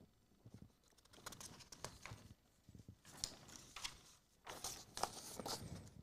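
Faint rustling with scattered light clicks, a little louder about three seconds in and again near the end.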